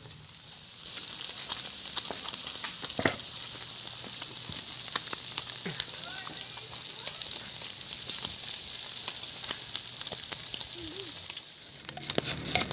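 Food frying in hot oil: a steady sizzle with many small crackles and pops.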